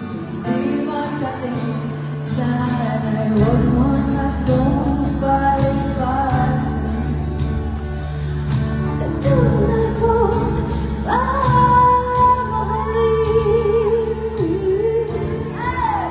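Live pop ballad: a woman singing over acoustic guitars, heard from the audience in a large hall. A deep bass part comes in about three seconds in.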